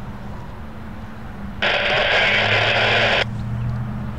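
A railroad scanner radio lets out a burst of static hiss about a second and a half in, cutting off abruptly after under two seconds, over a steady low hum.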